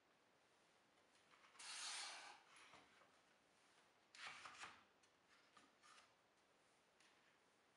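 Plywood and MDF jig parts sliding and scraping over an MDF worktop: two short rubbing scrapes, about two seconds in and again about four seconds in, with a few light knocks of wood on wood between them.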